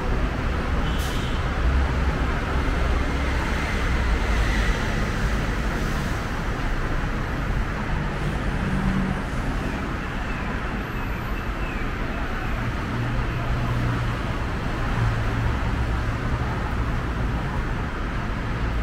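Steady road-traffic noise: a continuous low rumble of passing vehicles, with a brief click about a second in.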